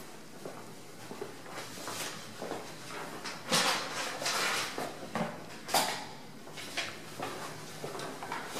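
Footsteps and hand-held camera handling noise as a person walks through empty rooms: a series of irregular taps and rustles, loudest about three to six seconds in.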